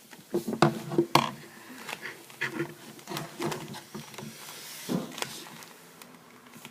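Plastic Rubik's cube being twisted by hand: a run of irregular clicks and clacks as its layers turn, loudest in the first second or so.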